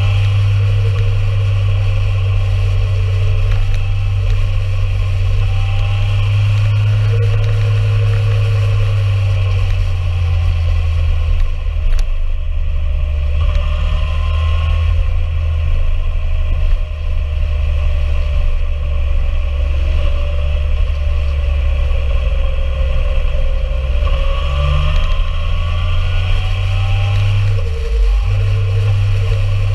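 Motorcycle engine running at road speed under a heavy low wind rumble on the microphone. Its pitch rises and falls several times with the throttle, and the rumble drops briefly near the end.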